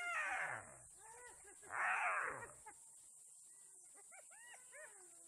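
African wild dogs and spotted hyenas calling in a fight: many short yelps and chirps that rise and fall in pitch. Two loud, harsh squealing cries stand out, one at the start and one about two seconds in.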